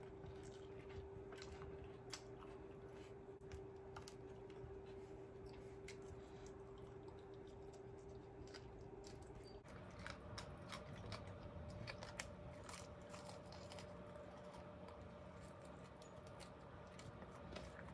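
Close-up eating sounds of KFC fried chicken being chewed: many small wet mouth clicks and smacks. A faint steady hum runs underneath and jumps to a higher pitch about ten seconds in.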